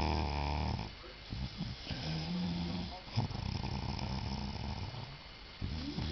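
A person snoring loudly: low, rough snoring breaths, one after another, every second or two.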